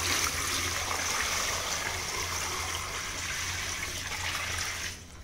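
Water pouring from a plastic bucket into a wide metal pan onto lumps of jaggery, a steady splashing pour that stops suddenly near the end. The water is added to dissolve the jaggery into syrup for peanut candy.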